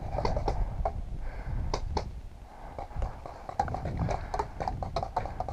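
A string of sharp pops and clicks, irregular and coming faster in the second half, typical of paintball markers being fired, over a low rumble on the microphone.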